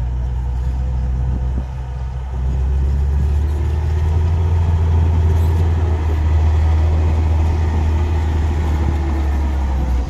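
Komatsu GD535 motor grader's diesel engine running under load as its blade pushes dirt: a steady low drone that gets louder about two and a half seconds in.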